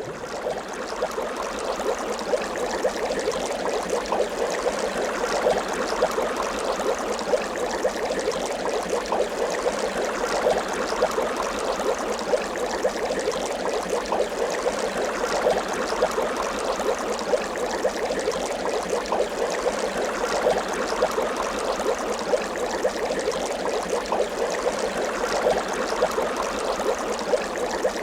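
Bubbling water sound effect: a steady, dense stream of small bubble pops and gurgles.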